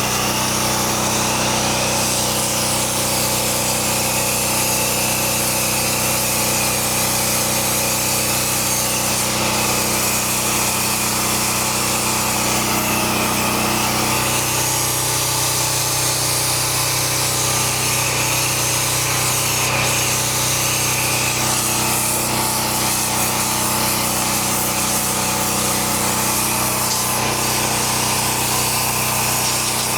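Gas-engine pressure washer running steadily, with the hiss of its high-pressure water jet spraying concrete.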